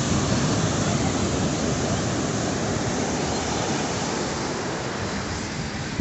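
Ocean surf breaking and washing up onto the sand: a steady, dense rush that eases slightly toward the end.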